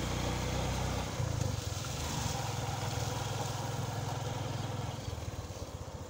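Motorcycle engine running steadily while riding along a dirt road, a low hum with rushing road and wind noise, easing off slightly near the end.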